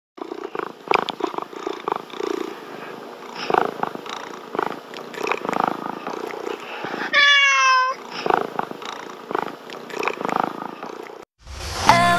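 Cat purring in uneven pulses, broken about seven seconds in by one short wavering meow; music starts just before the end.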